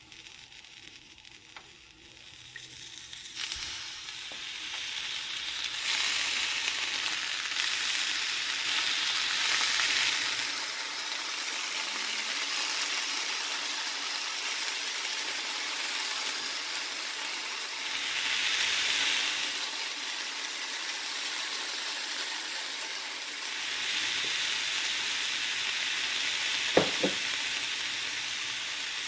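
Broccoli and Worcestershire sauce sizzling in a hot nonstick frying pan. The sizzle builds over the first few seconds, then runs steadily and swells now and then as the broccoli is stirred. One sharp clack near the end.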